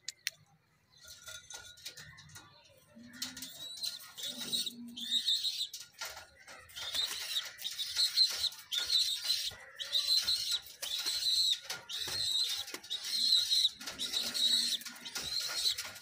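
Pigeons in their coop: a few short low coos and rustling of feathers, then from about six seconds in a high-pitched call repeating steadily, about three every two seconds.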